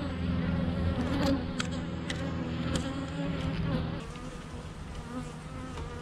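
Honey bees buzzing around an opened hive: a steady hum of many bees at several pitches, a little quieter after about four seconds, with a few short clicks over it.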